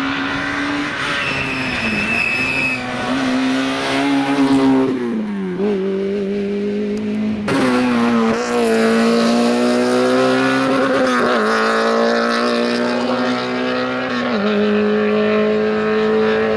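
Rally car engine at high revs, pulling through the gears. Its pitch climbs and then drops sharply at each shift. The sound breaks off abruptly about seven and a half seconds in and starts again straight away.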